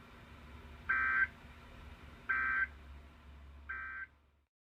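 Emergency Alert System end-of-message data signal on NOAA Weather Radio: three short bursts of SAME digital tones, about a second and a half apart, marking the end of the alert. A low hum from the radio runs underneath and cuts off just before the end.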